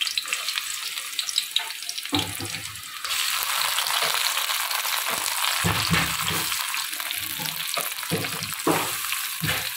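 Onion and tomato frying in oil in a kadai over a low flame: a steady sizzle that grows louder about three seconds in. A few short low knocks, typical of a spoon against the pan, are scattered through it.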